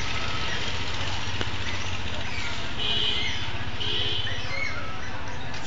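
Small birds chirping in short high calls, two brighter ones about three and four seconds in, over a steady low rumble.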